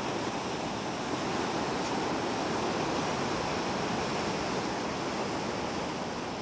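Ocean surf washing over rocks and shallow water at a sea cave mouth: a steady rushing noise.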